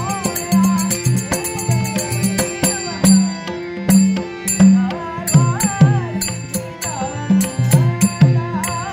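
Live Dashavatar Naradgeet music. A pakhawaj-type double-headed drum plays a quick pattern of low strokes, and small hand cymbals tick sharply in time. Over a steady held note, a male voice sings a winding, ornamented melody.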